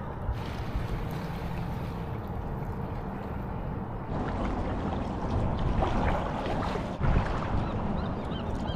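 Wind rumbling on the microphone over a wash of water noise. It gets louder about four seconds in.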